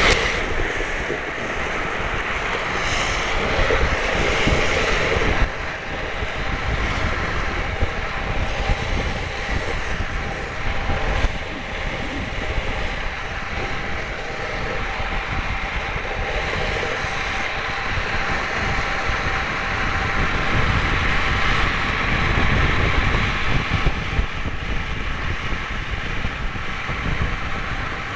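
Wind buffeting the microphone over the steady rolling rumble of a drift trike's wheels on asphalt as it coasts downhill.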